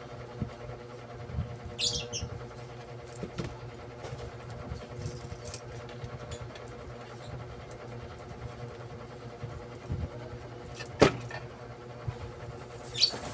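Copper winding wire being pulled and worked by hand through the slots of an alternator stator: a few light scrapes and a sharp click about eleven seconds in, over a steady background hum.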